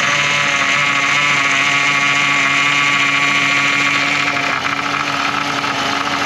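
Power steering pump on an idling 5.3 V8 making a loud, steady whine. It is the sound of a freshly refilled system still low on fluid, with air bubbles in it.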